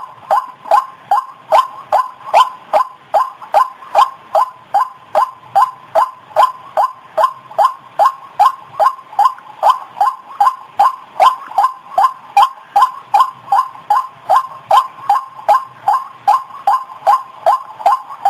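White-breasted waterhen (ruak-ruak) call played as a bird-lure recording: a monotonous run of short, loud croaking notes, about three a second, each dropping slightly in pitch, without a break.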